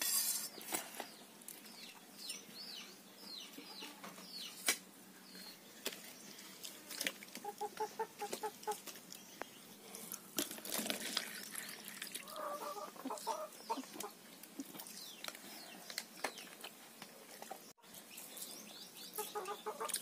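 Chickens clucking in short runs of quick repeated notes, several times. About ten seconds in, water is poured from a steel vessel into a plastic cup.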